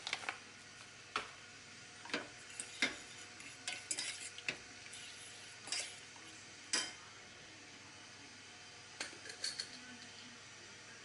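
Metal cutlery clinking and scraping against a stainless steel saucepan while stirring steamed fish and prawns: irregular sharp clinks, most of them in the first half, a quieter stretch, then a short cluster near the end.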